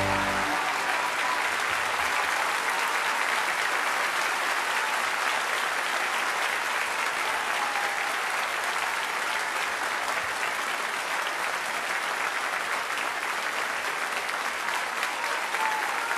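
Theatre audience applauding steadily at the end of a song. The band's last chord dies away in the first half second.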